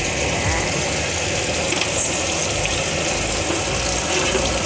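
Egg-coated chicken fillets sizzling steadily as they fry in hot oil in a pan.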